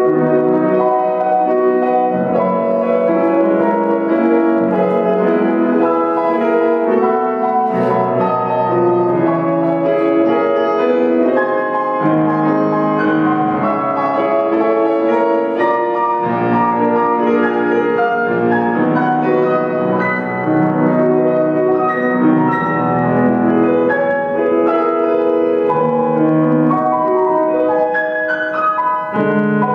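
Solo grand piano playing classical music: a continuous flow of chords and melody at a steady level.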